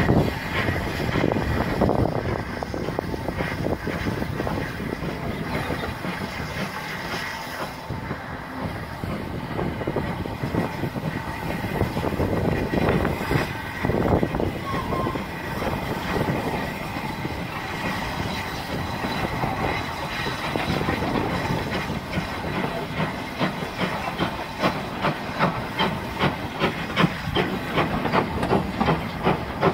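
Steam train running past, a continuous rush of train noise with hiss, turning in the last several seconds into a regular rhythmic beat.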